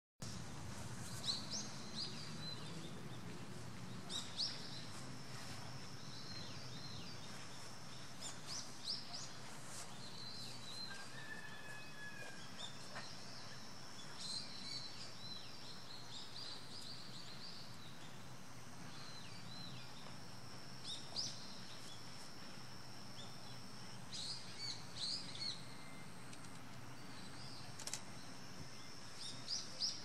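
Small birds chirping in short high clusters every few seconds, over a steady low background rumble; a thin, high steady tone comes and goes.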